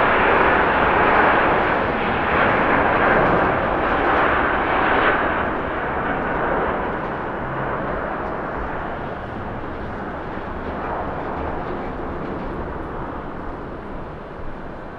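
Airbus A350-900's twin Rolls-Royce Trent XWB turbofans at takeoff thrust as the airliner lifts off and climbs away: a loud jet roar with a faint whine in it at first, fading steadily after about five seconds.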